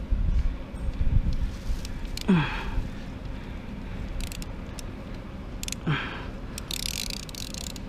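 Clutch pressure-plate bolts on a Ducati Monster 620 wet clutch being hand-tightened with a nut driver and socket: scattered light metal clicks and handling knocks, with dull thumps in the first second or so. Two short falling squeaks, about three and a half seconds apart.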